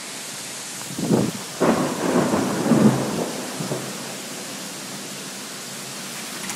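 Heavy rain hissing steadily during a thunderstorm, with a loud, irregular rumble of thunder from about one to three seconds in.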